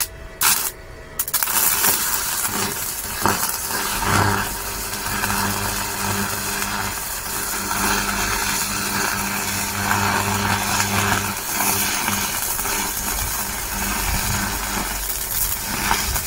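Parkside PISG 120 D5 inverter stick welder arc welding at 120 amps: a few sharp taps as the electrode is struck, then the arc crackles and hisses steadily for the rest.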